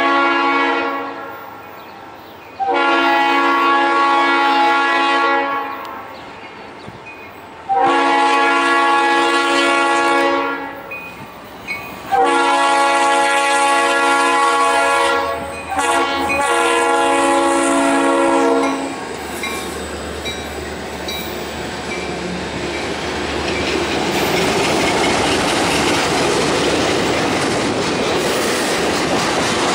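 Horn of a Norfolk Southern EMD SD40-2 locomotive sounding a series of blasts for a grade crossing, a short one and then four long ones over about 19 seconds. The locomotive then passes and freight cars roll by, the rolling noise building toward the end.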